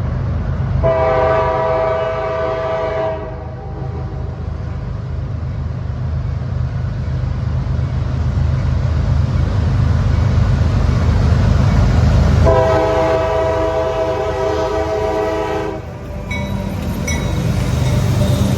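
CSX diesel freight locomotive's horn sounding two long blasts, each about three seconds, several seconds apart, over the steady low rumble of the diesel train.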